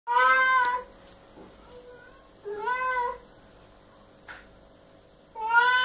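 Domestic cat meowing three times, each a drawn-out call that rises and falls in pitch. The third begins near the end.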